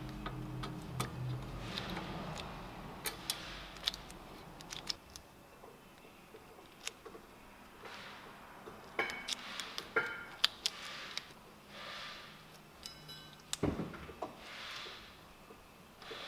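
Light metallic clicks and rattles of new rear brake pads and their steel spring clips being worked into a 2016 Honda Pilot's caliper bracket by hand, with soft rustling of nitrile gloves. A low hum runs under the first few seconds.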